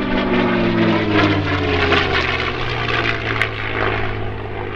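P-51D Mustang's Merlin V-12 engine running at display power on a fly-past. Its pitch falls over the first second or so as the aircraft passes, then holds steady.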